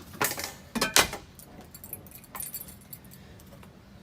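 Ceiling fan with a broken blade bracket, its loose metal parts clanking and rattling. Three loud sharp clanks in the first second or so give way to lighter clinks over the motor's low steady hum.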